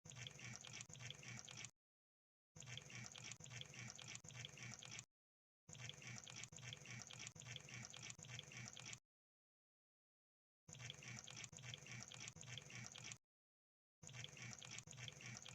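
Crab sound effect: a rapid, dense crackle of small clicks, played in bursts of one to three seconds that start and stop abruptly with stretches of total silence between them.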